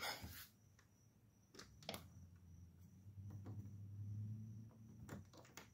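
Near-silent room tone, with a few soft clicks and a faint low hum that sets in a little before the middle and fades near the end.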